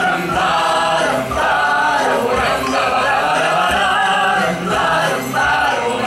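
Several voices singing a song together over instrumental music with a low beat.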